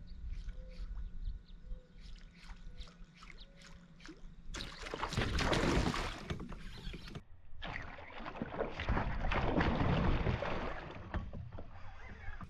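A run of light, regular ticks as a topwater bait is worked across the surface, then a largemouth bass blowing up on it in a loud splash about four and a half seconds in, followed by a second long stretch of heavy splashing as the hooked fish thrashes at the surface.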